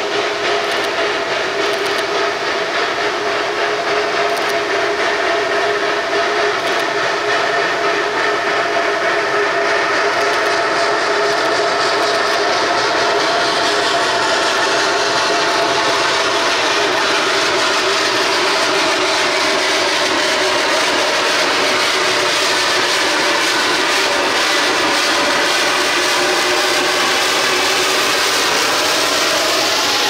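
Narrow-gauge steam locomotive hauling a train, approaching and then passing with its carriages, growing louder over the first ten seconds or so. Steady ringing tones run under the noise of the train throughout.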